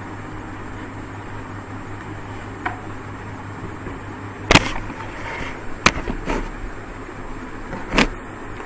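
Steady low hum of background noise, broken in the second half by four or five sharp knocks or clicks, the loudest about four and a half seconds in.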